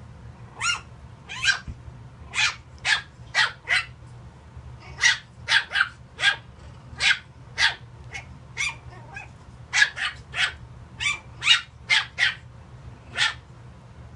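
Tiny puppy yapping: a long run of about twenty short, high-pitched barks, one or two a second, some in quick pairs.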